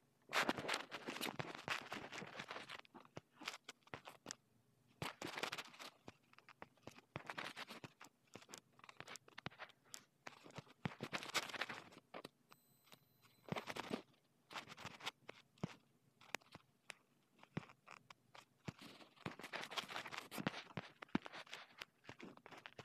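Faint, irregular rustling and scraping with scattered sharp clicks: handling noise picked up by a phone's microphone while its screen is being tapped.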